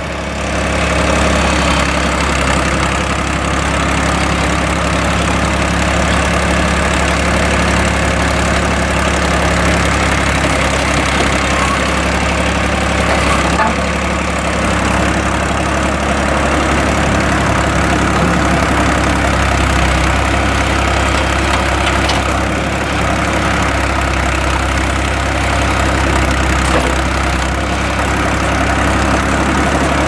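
The 1982 John Deere 300B backhoe's three-cylinder gas engine runs steadily while the backhoe boom and bucket are worked, with a slight change in the engine note around the middle.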